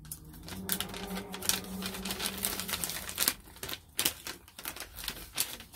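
Thin plastic treat bag crinkling and crackling in irregular bursts as it is pulled open and handled.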